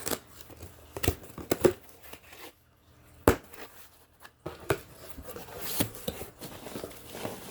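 A cardboard shipping box being cut and torn open: packing tape tearing and cardboard crinkling, with a few sharp clicks and knocks.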